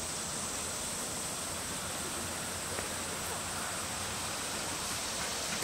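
Steady outdoor ambience of a summer field: an even, high-pitched drone of insects over a low rumble, with no distinct events.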